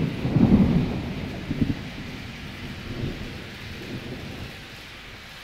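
Thunder rumbling, loudest in the first two seconds, then rolling on in a few weaker swells and dying away about four and a half seconds in, over a steady hiss of rain.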